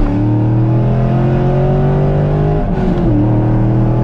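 C5 Corvette's V8 running through a valved aftermarket exhaust under acceleration. The engine note climbs slowly, then drops sharply about three seconds in and holds lower.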